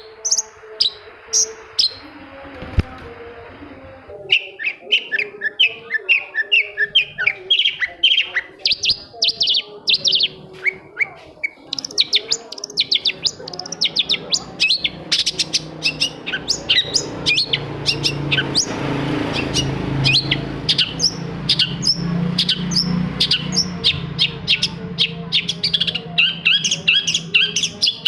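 Long-tailed shrike (cendet) singing: a rapid run of sharp, downward-sweeping chirping notes, several a second. The notes are sparse for the first few seconds and then come densely to the end, over a faint low hum.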